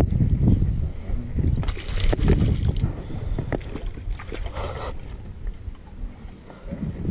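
Wind buffeting the microphone over water lapping at a small fishing boat's hull. There are two short noisy bursts, about two seconds in and about four and a half seconds in.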